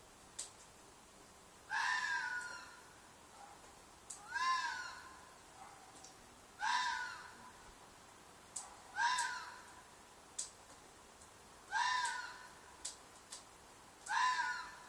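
Fox screaming: six harsh shrieks, about one every two and a half seconds, each rising then falling in pitch. A faint steady tone runs underneath.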